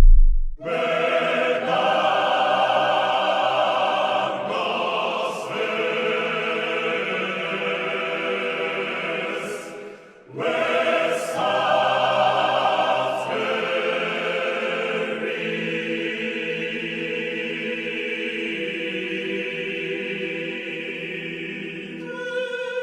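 Background music with a choir singing sustained notes over an orchestral bed; it breaks off briefly about ten seconds in and then resumes.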